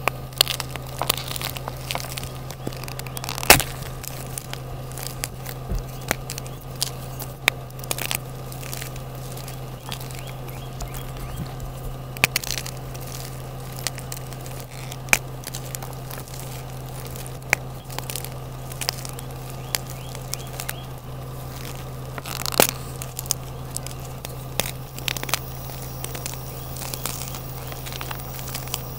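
Blocks of gym chalk crushed and crumbled between the hands over a pile of broken chalk, giving irregular sharp crunches and crackles, with two louder cracks, one about three and a half seconds in and one near twenty-two seconds in.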